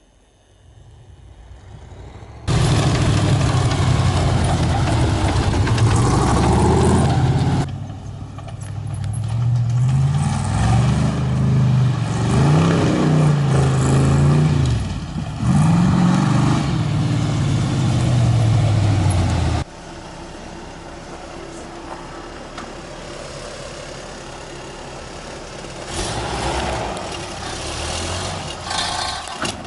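Chevy 350 V8 in a 1975 Toyota FJ40 Land Cruiser revving hard off-road through a glasspack exhaust, the engine note rising and falling again and again. About two-thirds of the way through it drops abruptly to a quieter running sound.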